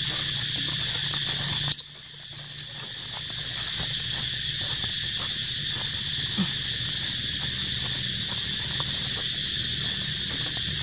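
Steady high-pitched drone of buzzing insects in a chorus. About two seconds in, a sharp click cuts it and the drone drops away, then builds back over the next couple of seconds, with two small clicks along the way.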